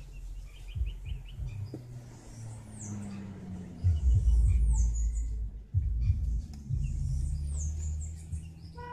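Low rumbling noise on the microphone, loudest from about four seconds in, with a bird's short, high, downward-sweeping chirp heard three times.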